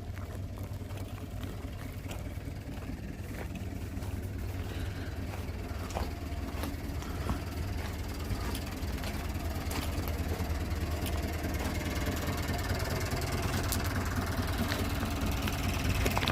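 Diesel engine of a Volkswagen 24250 truck idling steadily, a low even hum that grows gradually louder toward the end.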